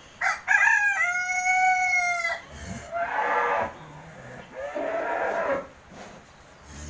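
A rooster crows once, a long call of about two seconds, choppy at first and then held steady before dropping off. Two shorter, rougher animal calls follow a second or two apart.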